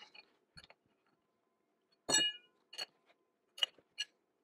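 A large open-end steel wrench clinking and tapping against a steel bearing puller as it is fitted onto and worked on the puller's screw: about six light metallic knocks. The loudest comes about two seconds in and rings briefly.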